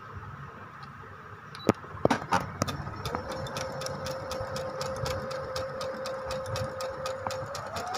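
Brother FS101 computerized sewing machine starting to stitch: a steady motor whine with rapid, even needle clicks, rising in pitch near the end as the machine speeds up. A few sharp clicks come just before it starts.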